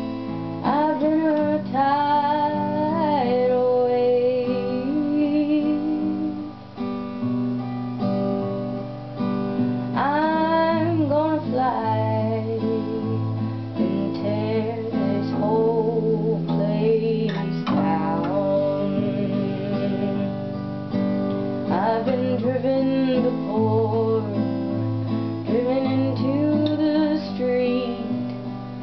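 Steel-string acoustic guitar played steadily in chords, with a woman singing over it in several phrases.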